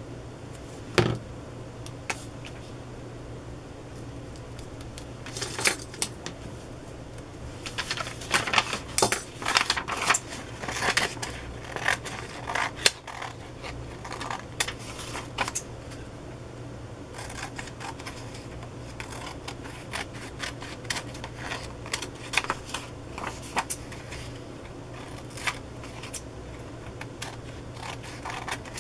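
Paper being handled and cut with scissors through manila tag and old paper: a run of sharp clicks and crackling rustles, busiest about eight to thirteen seconds in, then softer, steady snipping.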